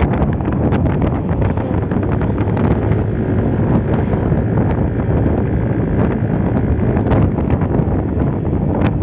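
Wind buffeting the microphone on a moving Yamaha Aerox V2 scooter, with its single-cylinder 155 cc engine and CVT running steadily underneath at cruising speed.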